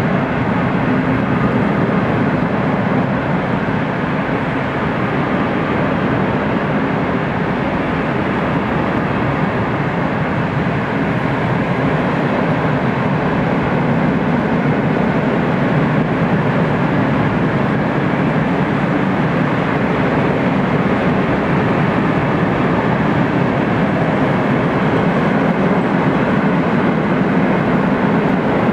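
Freight train of open hopper wagons rolling past, a steady loud rumble of steel wheels on the rails that holds throughout.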